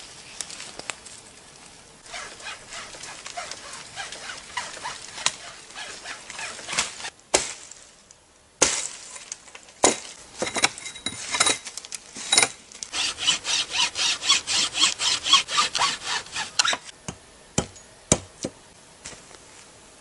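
Dry wood being gathered and cut: scratchy crackling through dry brush and several sharp cracks of branches snapping. Partway through comes a run of quick even saw strokes, about four a second, cutting through a branch for about four seconds, and then a few more single cracks.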